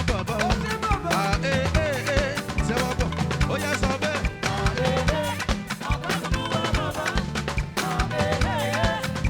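Live band playing upbeat African gospel praise music, a drum kit and bass keeping a steady dance beat under a wavering melody line.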